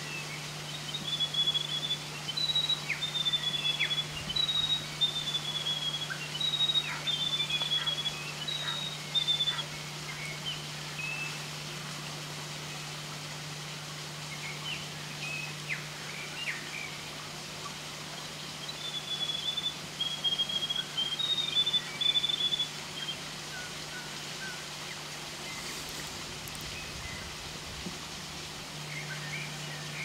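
Small songbirds singing: runs of short, high, repeated chirping notes during the first ten seconds and again about twenty seconds in, over a steady low hum.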